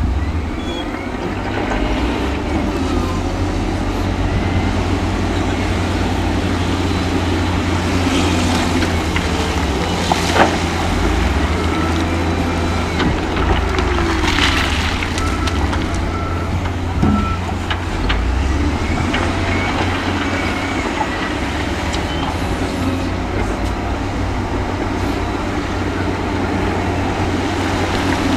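Heavy diesel earthmoving machinery running with a steady deep engine rumble. Short reversing beeps come near the start and three more about halfway through, and a few sharp knocks sound in the middle.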